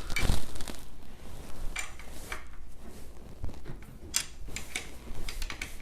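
Metal clinks and clicks of a wrench working a bolt on a 3D printer's Z-axis brace as it is tightened, in scattered bursts about two seconds in and again near the end.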